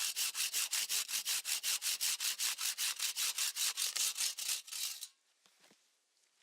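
Wood being worked with quick, even scraping strokes, about five a second, as kindling is prepared. The strokes stop suddenly about five seconds in.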